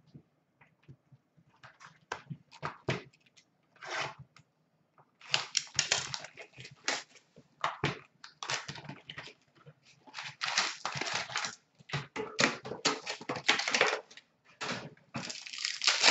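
Wrapper of a 2019-20 Upper Deck Artifacts hockey card pack crinkling as it is handled and torn open, with cards shuffled in the hands. A run of sharp crackles, scattered at first and almost continuous from about five seconds in.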